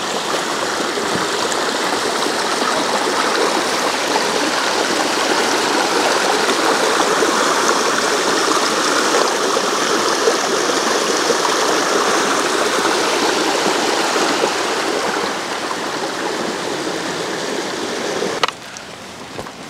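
Small rocky woodland brook rushing and tumbling steadily over boulders. The water sound drops away abruptly near the end.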